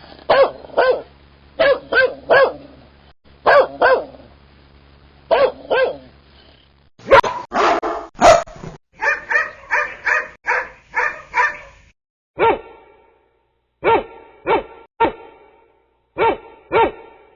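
Dog barks from three recordings joined one after another. First come spaced barks in ones, twos and threes. A little before halfway there is a quicker, denser run of barks. After a short gap come single barks roughly a second apart.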